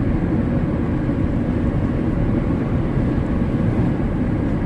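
Steady rumble of a vehicle driving at road speed, engine and tyre noise heard from inside the cabin.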